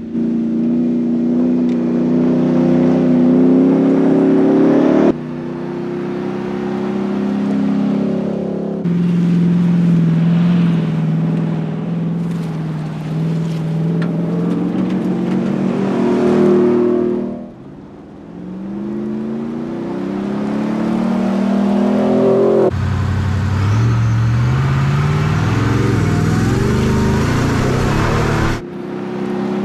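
Ford F-150 Raptor R's supercharged 5.2-litre V8 running under load, its pitch climbing and falling through acceleration and gear changes. The sound jumps abruptly every few seconds, as separate clips are joined, and one stretch near the end carries a deeper, rising engine note under a louder rushing noise.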